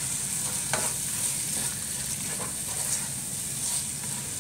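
Onions, masala and freshly added tomato slices frying in oil in a nonstick pot, sizzling steadily while a wooden spatula stirs them, with a few soft scrapes.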